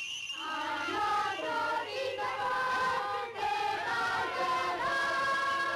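Children's choir singing a song in long held notes that move step by step.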